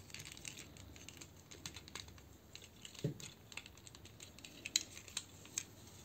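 Faint clicks and rattles of the plastic parts of a Transformers Buzzworthy Bumblebee Silverstreak figure being folded and pressed into place by hand, with a duller knock about three seconds in.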